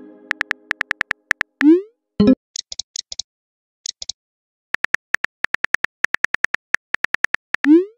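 Synthetic phone-keyboard typing clicks from a texting-story animation, coming in quick runs, fastest in the second half. A short rising bloop plays twice, once about two seconds in and again near the end, as a message is sent, and a few soft hissy taps sound in between.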